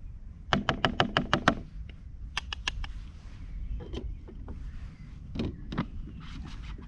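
A serving utensil knocking against a camping pot while dishing up rice: a quick run of about eight taps, a shorter run of about five, then a few single knocks.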